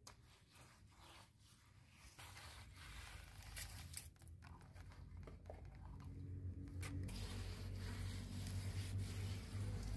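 A bare hand smearing and rubbing wet mud over a clay cooking stove, a run of soft scraping strokes with a few sharper scrapes. A low rumble builds over the second half.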